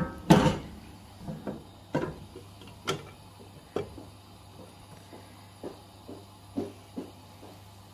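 Cookware knocking on a gas hob as a hinged double-sided frying pan is handled and opened. One loud knock comes just after the start, followed by a series of lighter clicks and taps.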